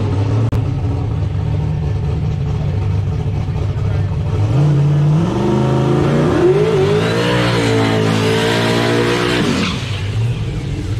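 A drag car's engine idles, then revs up hard for a burnout, the rear tyres spinning and squealing. About a second and a half before the end the revs drop sharply back to idle.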